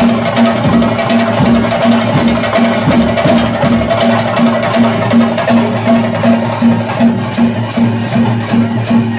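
Loud traditional ritual music: drums and other percussion struck with sticks in a fast, steady rhythm, over a held tone that pulses about three times a second.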